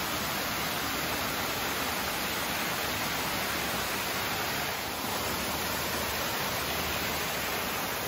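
Small waterfalls spilling down the rocky wall of a sinkhole: a steady, even rush of falling and splashing water.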